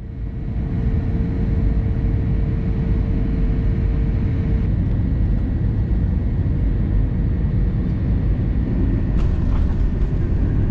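Steady low rumble of an airliner's cabin during final approach and landing, with a steady hum that stops about halfway through. A couple of brief knocks come near the end, around touchdown on the runway.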